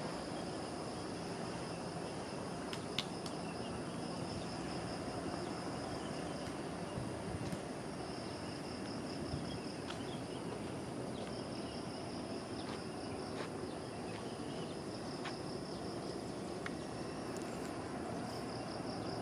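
Insect trilling: a high-pitched, fast-pulsing buzz in long phrases separated by short breaks, over steady low background noise, with a few faint sharp clicks.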